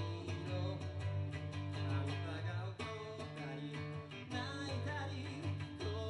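Live band playing an instrumental passage: a semi-acoustic guitar over a steady bass line and drums.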